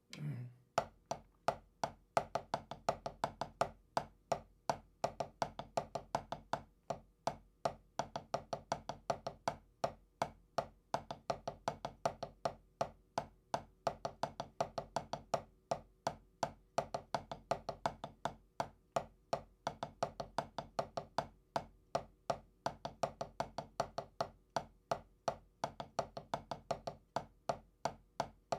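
Drumsticks playing a steady double-stroke roll exercise: a fast, even stream of strokes with regular louder accents.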